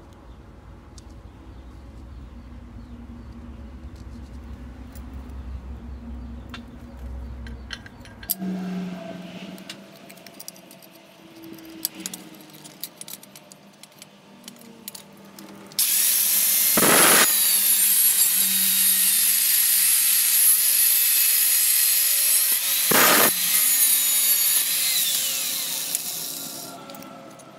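An electric power tool working on steel runs for about ten seconds from a little past the middle, a loud continuous hissing noise that surges twice. Before it come scattered light clicks and knocks from metal parts being handled.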